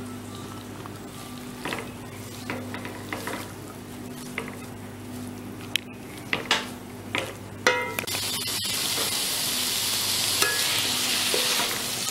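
Vegetables and chicken being stir-fried in a non-stick wok: a silicone spatula scrapes and knocks against the pan. About eight seconds in, a loud steady sizzle sets in and holds.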